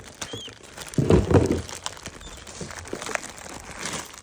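Clear plastic bag crinkling and crackling as it is handled and pulled at, with a louder bump about a second in.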